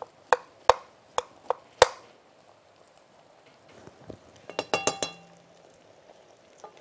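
A metal spoon knocking sharply against a bowl five times in under two seconds, as ghee is scooped out. About four and a half seconds in comes a quick run of ringing metal clinks, utensils against cookware.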